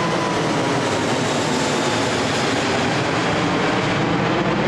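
Airbus A380's four jet engines giving a loud, steady roar as the airliner passes low overhead and moves away, with a faint whine sliding slowly down in pitch at the start.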